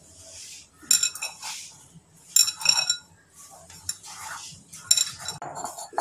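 Metal bangles on a wrist clinking and jingling against each other as a hand kneads dough in a bowl, in short bursts about a second in, around two and a half seconds in, and near five seconds.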